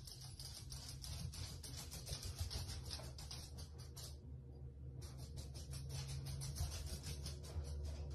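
Rapid dry scratching, many quick ticks in a row, in two runs that stop for about a second roughly four seconds in, over a faint low hum.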